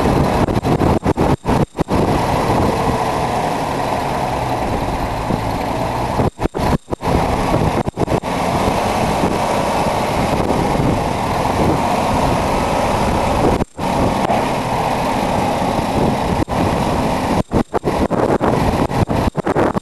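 GMC cabover semi tractor's diesel engine running as the truck creeps up onto a trailer, mixed with heavy wind buffeting the microphone. The sound cuts out briefly several times.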